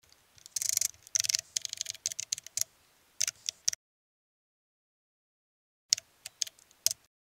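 Computer keyboard being typed on in quick runs of clicks, with a pause of about two seconds before a last short burst of keystrokes.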